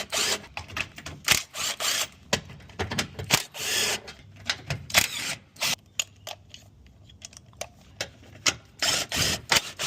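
Hand tools and metal parts being handled: irregular clicks, knocks and rattles, with a few short scraping swishes.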